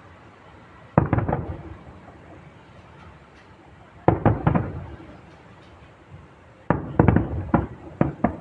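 Fireworks bursting overhead: one blast about a second in, another about four seconds in, then a quick run of four or five near the end, each dying away over about a second.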